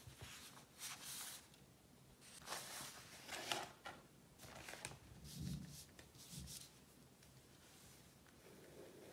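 Faint, intermittent rustling and soft handling sounds, with a few light taps among them.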